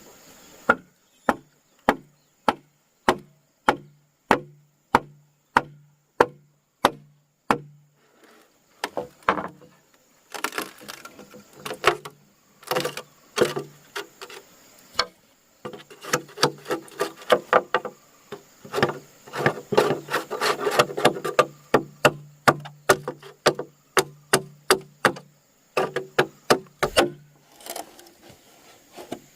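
Wood being struck over and over with a hand tool while building a cage. For about eight seconds the blows fall evenly, about one and a half a second, each with a short low ring; then comes a faster, uneven run of blows before they stop near the end.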